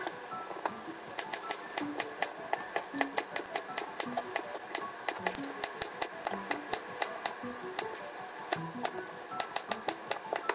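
Kitchen knife slicing green peppers into thin strips on a wooden cutting board: quick, steady taps of the blade on the board, several a second, starting about a second in. Soft background music plays underneath.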